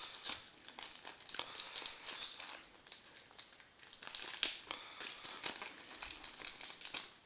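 Trading-card pack wrapper crinkling and tearing as it is opened by hand, in irregular crackly bursts.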